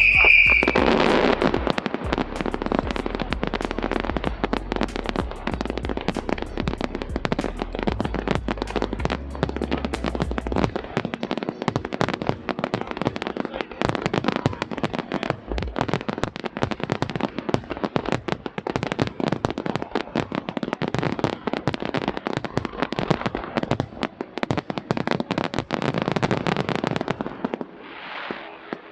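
Fireworks display: a dense, continuous crackle of rapid pops and bangs, opening with a brief high whistle, then thinning out near the end.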